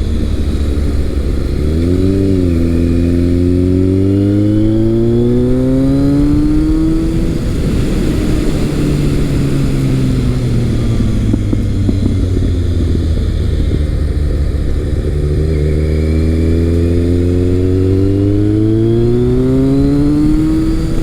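A 2002 Kawasaki ZRX1200R's inline-four engine running through an ART Pro Series II slip-on exhaust while being ridden. It pulls up in rising pitch from about two seconds in, drops back about seven seconds in and winds down slowly, then accelerates again toward the end.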